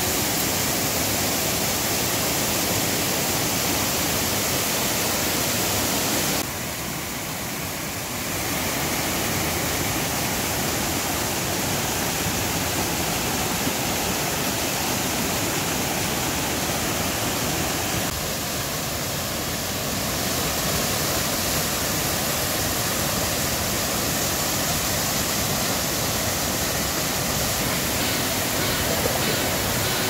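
Mountain stream rushing over boulders: a steady, loud roar of water that drops a little in level twice, briefly.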